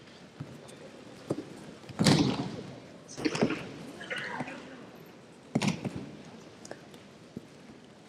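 Aikido breakfalls: a thrown partner's body hitting tatami mats, three sharp thumps about two, three and a half, and five and a half seconds in.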